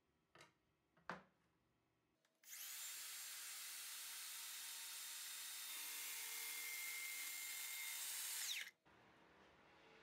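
Two short knocks, then a circular saw starts and runs steadily for about six seconds, cutting through an MDF board along a straightedge guide, getting a little louder partway through; it stops abruptly.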